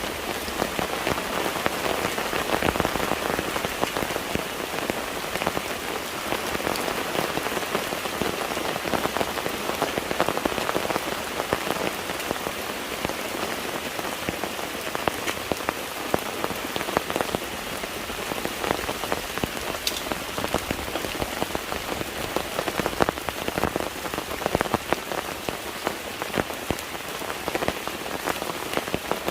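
Steady rain falling, a dense, even hiss made up of countless small drop hits.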